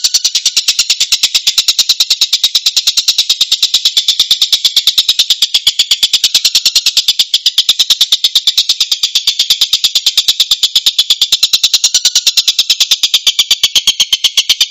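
Harsh, rapid tengkek bird calls, a dense rasping run of short notes at about five a second, repeated without a pause as a bird-training (masteran) recording.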